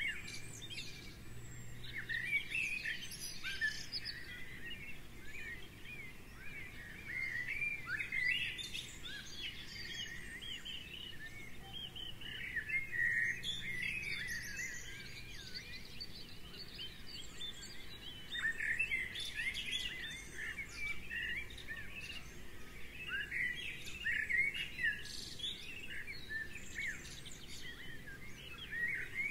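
A chorus of small songbirds chirping and singing together: many short, quick, high-pitched twittering calls overlapping, growing louder and softer in waves.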